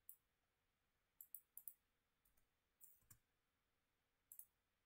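Faint, scattered clicks of a computer mouse over near silence, some coming in quick pairs.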